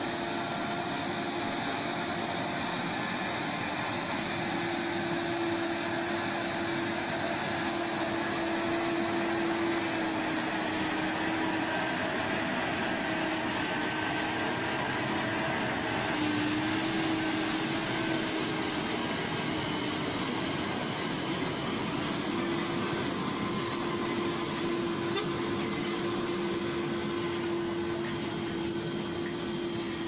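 Heavy diesel logging trucks loaded with logs running as they crawl past, a steady drone with a held tone that wavers slightly in pitch.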